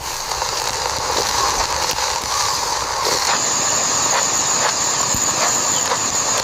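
Food sizzling in a hot pan: a steady hiss with scattered small crackles, its tone shifting about three seconds in.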